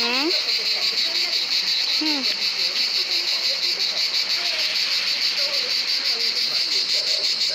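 Cicadas singing in a steady, high-pitched, rapidly pulsing chorus.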